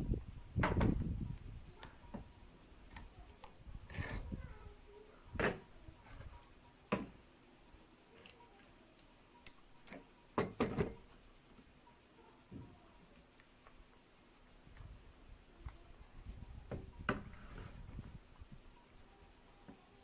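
Handling noise: rubbing against the microphone with scattered clicks and knocks, and a heavy low rumble in the first second.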